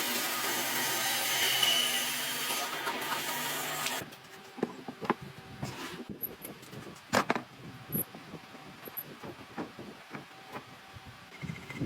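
A power tool running on wood, steady and loud, cuts off suddenly about four seconds in. Scattered wooden knocks and clicks follow as the wood is handled.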